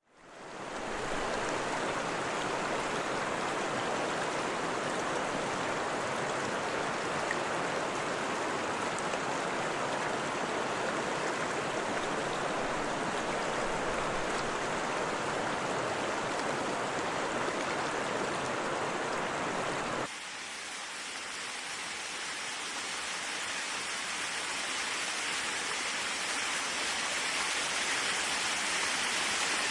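Waterfall rushing, a steady full sound of falling water that fades in at the start. About twenty seconds in it changes abruptly to a thinner, hissier rush without the deep part, which slowly grows louder.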